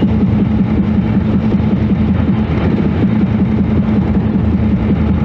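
Vehicle engine running steadily with road rumble: a constant low hum that holds the same pitch throughout.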